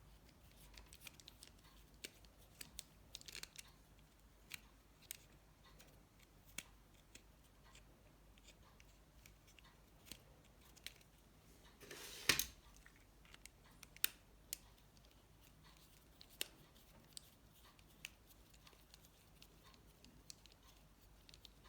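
Faint, scattered small clicks and taps of a precision screwdriver and the Nokia 7373 phone's small parts being handled as its screws are taken out, with a louder brief scraping rattle about twelve seconds in.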